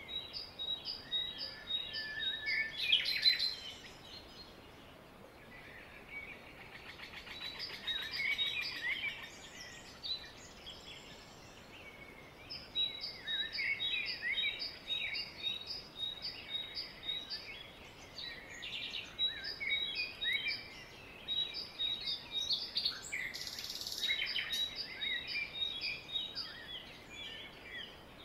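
Songbirds chirping and singing, several calls overlapping, with one bird repeating a quick high chirp about three times a second. A short hiss a little before the end.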